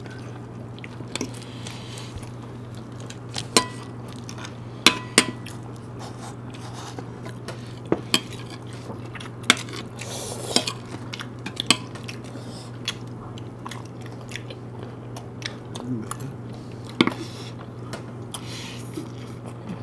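Metal spoons and forks clinking and scraping against ceramic plates and bowls: irregular sharp clicks every second or two, some with a brief ring, with chewing in between. A steady low hum runs underneath.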